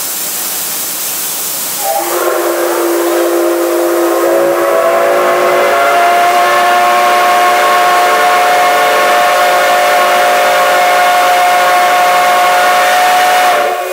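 Steam locomotive letting off a steady hiss of steam. About two seconds in it sounds one long departure blast on its steam whistle, several tones sounding together, held for about twelve seconds before cutting off suddenly near the end.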